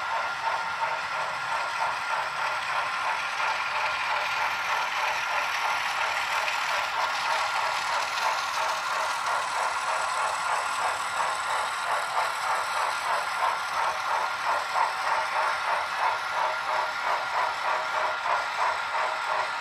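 HO scale model freight cars and a diesel locomotive rolling along the track: a steady rattling clatter of wheels on rail with a thin steady whine, settling into a quick even pulse, about two beats a second, in the second half.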